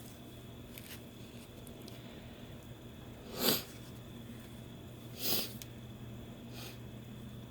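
Two short, sharp sniffs through the nose, the second about two seconds after the first, as chhinkni sneezing powder is snorted up the nostrils.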